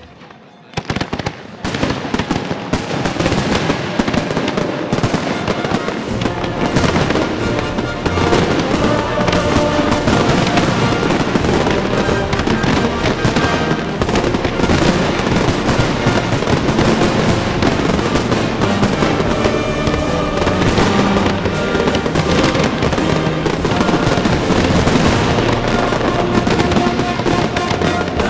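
Grand-finale barrage of display fireworks: after a brief lull, aerial shells and comets fire and burst in a dense, continuous volley of bangs and crackle from about a second in. Music plays alongside.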